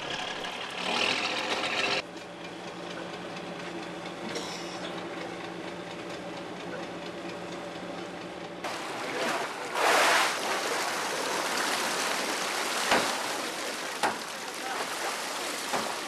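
Fishing boat's engine running with a steady hum. About halfway through, a louder, even rushing hiss takes over, with a few sharp clicks near the end.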